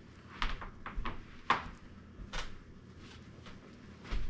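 About half a dozen short knocks and clicks from someone rummaging through kitchen cabinets, the loudest about one and a half seconds in.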